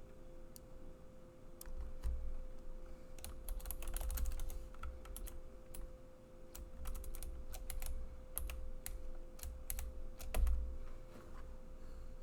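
Typing on a computer keyboard: irregular runs of key clicks, busiest about four seconds in and again from about seven to ten seconds in, over a steady faint hum.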